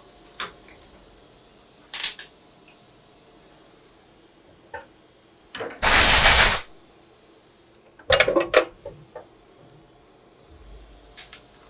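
A short hiss of compressed air from a blow gun aimed at a machine vise about six seconds in, the loudest sound. Around it are scattered metal clinks and a quick run of clanks a couple of seconds later, from the steel vise and its brass handle as the workpiece is changed.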